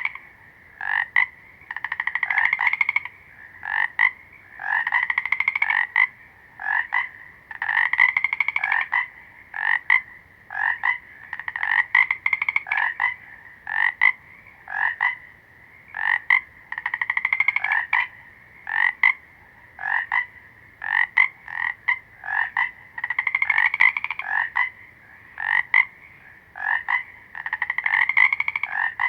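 Frogs croaking in a steady, repeating pattern. Pulsed, trilling calls about a second long, each rising slightly in pitch, come every few seconds, with short single croaks in between.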